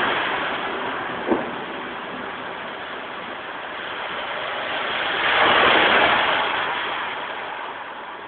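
Tyres hissing on a wet road as a vehicle passes: the hiss fades, then swells again about five seconds in and dies away, over a steady wash of rain noise. A single short knock about a second in.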